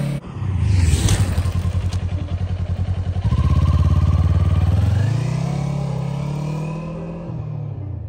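Sport motorcycle engine pulling away with a low pulsing exhaust note, revving higher about five seconds in, then easing off and fading as the bike rides away.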